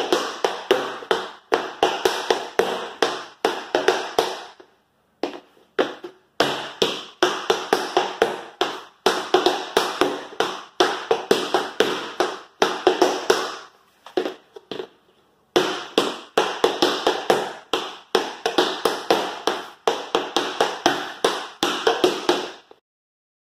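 Tap shoes with metal taps dancing repeated single time steps (stomp, hop, spring, flap, step) on a wooden floor: crisp taps in quick rhythmic clusters, with two short breaks.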